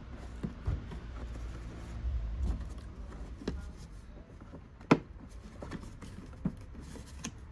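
Scattered light plastic clicks and knocks as the cordless lawnmower's plastic housing and parts are handled and prised at, with one sharp click about five seconds in, over a low rumble.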